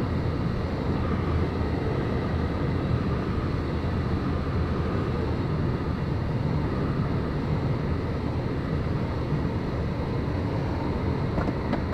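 Steady rush of airflow around a glider's canopy and fuselage, heard from inside the cockpit in engineless flight. A couple of faint clicks near the end.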